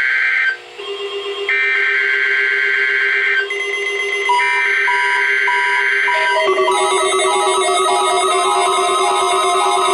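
NOAA Weather Radio SAME header: three bursts of screechy two-tone digital data, each about two seconds with a short gap between, sent to trigger alert receivers during the required weekly test. A steady lower tone and short repeated beeps sound under the bursts, and from about six and a half seconds in a dense layer of synthesizer-like electronic tones takes over.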